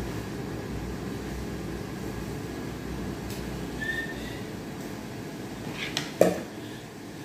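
Steady low room hum and hiss, with a brief faint whistle-like tone about four seconds in and a single sharp click about six seconds in.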